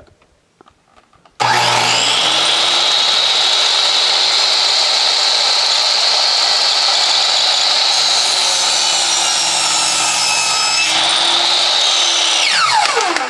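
A compound miter saw's motor starts suddenly and runs loud and steady with a high whine for about eleven seconds while the blade cuts wood. Near the end the motor is switched off and the blade spins down with a falling whine.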